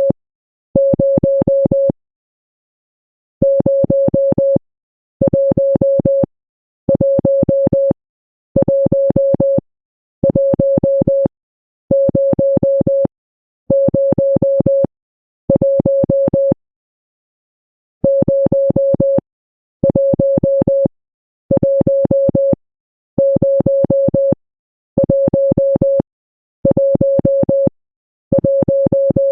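Morse code sent as a steady, mid-pitched beep tone keyed on and off. Each tone lasts about a second with short, even gaps between them, and the spacing is broken by two longer pauses.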